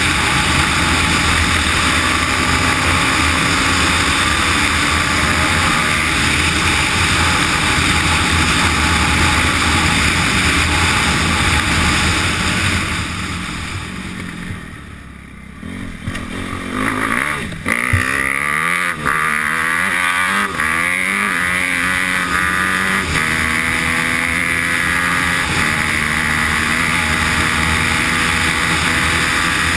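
Dirt bike engine running hard at high revs. Partway through, the revs drop away to a low level. The engine then picks up again in a series of rising sweeps through the gears, with a couple of knocks, before settling back to steady high revs.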